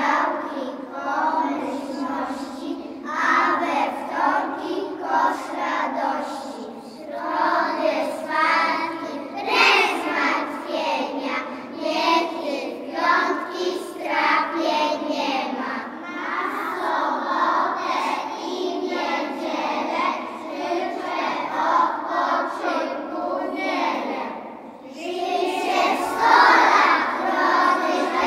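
A large group of young children singing a song together in unison, with a short pause between lines near the end.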